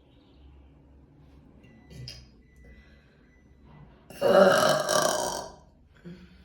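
A woman lets out one loud, long burp about four seconds in, lasting about a second and a half.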